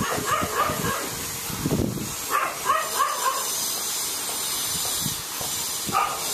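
Short animal calls in small clusters over a steady hiss: a few near the start, another run around three seconds in, and one near the end.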